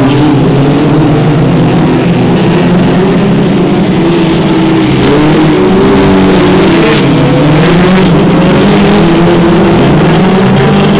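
Several F2 stock car engines racing together, their overlapping notes rising and falling as the cars accelerate down the straights and lift for the bends.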